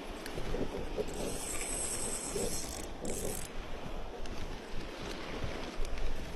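Fishing reel being cranked: a mechanical whirring and ratcheting with a high, steady whine from about one to three and a half seconds in.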